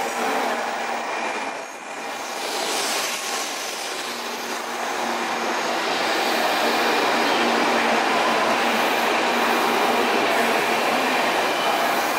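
N700-7000 series Shinkansen train moving along the station platform and picking up speed: a steady rush of wheel and running noise with a faint steady hum, growing louder about six seconds in.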